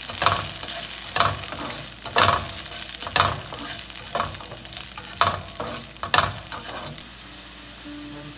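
Kitchen work: a steady hiss with a sharp clatter of cookware or dishes about once a second, growing quieter near the end.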